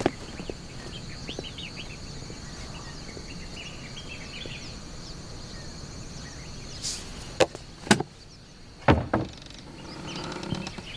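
Outdoor ambience with a steady high insect drone and small chirps, then about four sharp knocks between seven and nine seconds in.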